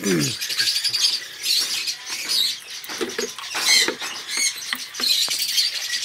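Aviary birds chirping and twittering, many short high-pitched calls overlapping without a break.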